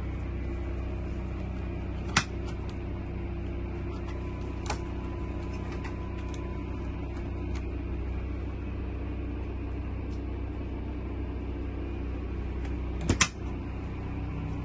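Dometic RV refrigerator door latch clicking open about two seconds in, and the door shutting with a sharp double clack near the end, over a steady low hum.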